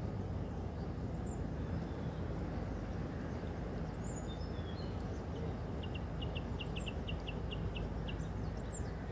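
Birds calling over a steady low rumble. A short, high, arching call repeats roughly every second or so, and past the middle a quick run of about a dozen ticking notes sounds.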